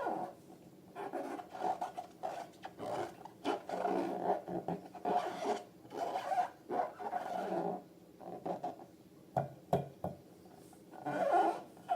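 Rubber balloons squeaking and rubbing in irregular bursts as they are handled, with a couple of sharp clicks a little under ten seconds in.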